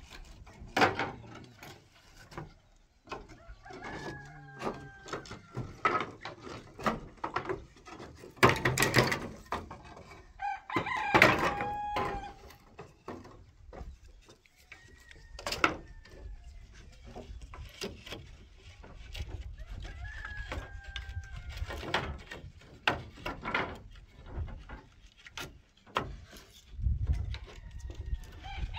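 A rooster crowing: one loud crow about eleven seconds in and another starting at the very end, with fainter calls in between, among scattered sharp knocks and clatter.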